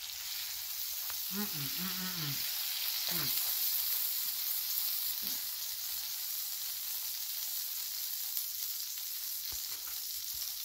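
Sauced pork butt steaks sizzling on a hot Blackstone flat-top griddle: a steady, high frying hiss that swells slightly a few seconds in.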